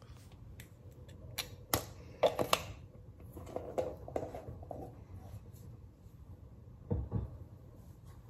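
Small handling sounds of a plastic spoon and a plastic peanut butter jar and lid: a few sharp clicks and taps, the loudest a pair about two and a half seconds in, then soft rustling and a dull knock near the end.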